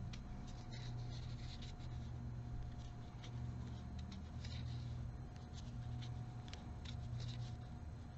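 Crochet hook working yarn: soft, irregular scratching and clicking of hook and yarn. A steady low hum runs underneath.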